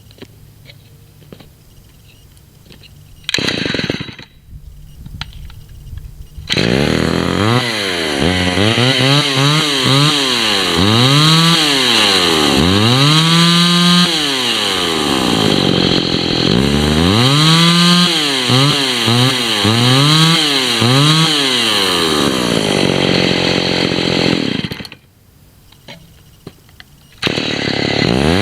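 Vintage two-stroke chainsaw being pull-started: a brief pop, then it catches and runs, revved up and down again and again with the throttle. It cuts out near the end and is started again just before the end.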